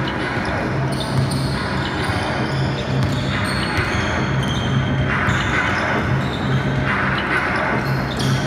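Basketball game play: a ball bouncing on a wooden gym floor amid players' running footsteps, with short high squeaks scattered through and a steady low hum underneath.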